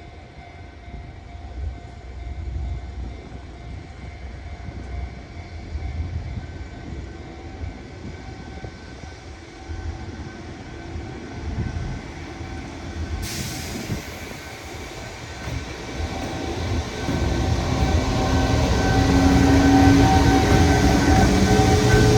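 Japanese level-crossing warning bell ringing steadily while a freight train hauled by an EF210 electric locomotive approaches. The train's rumble grows steadily louder through the last quarter.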